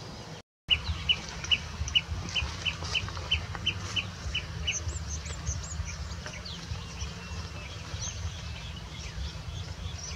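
Birds calling. A run of about a dozen short, evenly spaced notes, three or four a second, gives way after a few seconds to scattered higher chirps, all over a steady low rumble. The sound cuts out completely for a moment just after the start.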